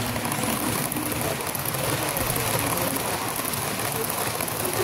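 HO scale model passenger train rolling past close by: a steady whir of small metal wheels running on the track.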